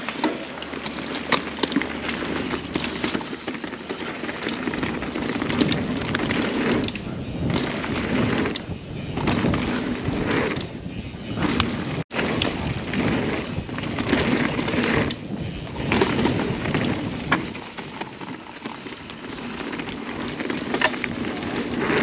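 Mountain bike riding down a rough dirt trail: tyres rolling over dirt and rocks under a steady rush of noise, with many sharp rattles and knocks from the bike, surging and easing every couple of seconds.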